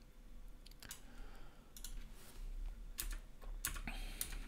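Computer keyboard keys tapped a handful of times at irregular intervals, as a number is typed into a field.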